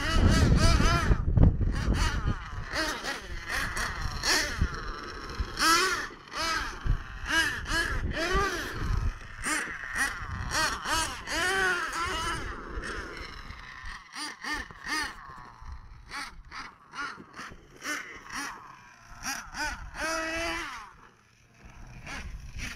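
Small nitro engines of radio-controlled monster trucks revving up and down as the trucks drive and jump, their pitch swooping high and low. A heavy low rumble at the start, and the engines fade to quiet near the end.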